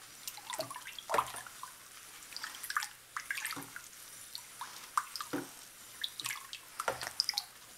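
Water in a plastic tub stirred by a rubber-gloved hand: scattered small splashes and drips, faint and irregular.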